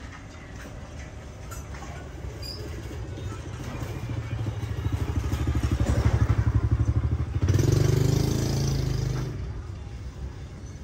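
A motorbike passes close by, its engine pulsing fast and growing louder, loudest a little over halfway through, then fading away.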